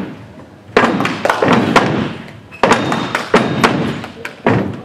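A step team stepping in unison: sharp stomps and hand slaps landing in quick clusters of hits, each ringing on briefly in the hall.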